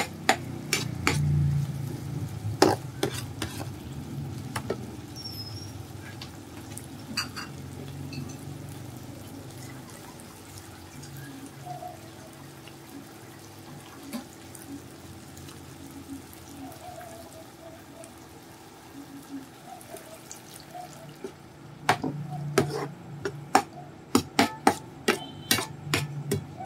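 Chicken and sliced red peppers sizzling in a nonstick frying pan on an induction cooktop. A slotted spatula scrapes and taps against the pan while stirring, in a burst of clicks near the start and again from about 22 seconds on, with steady sizzling in between.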